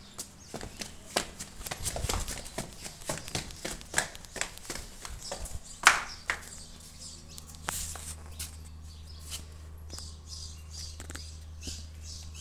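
Footsteps and knocks from handling a phone as a person walks, several irregular clicks a second, with one sharper clack about six seconds in. After that the steps thin out and a steady low rumble carries on.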